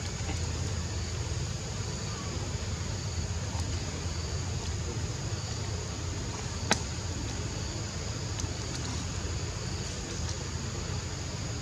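Steady chorus of forest insects, high-pitched and continuous, over a low steady rumble. A single sharp click comes a little past halfway.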